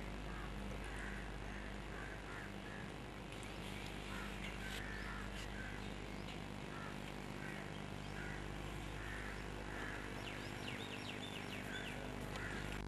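Birds calling outdoors: short calls repeating about every half second, joined by quick high chirps later on, over a steady low hum.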